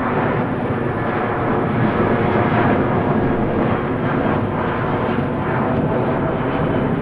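Jet plane engines giving a steady, even hum in flight, with no clear changes in level or pitch.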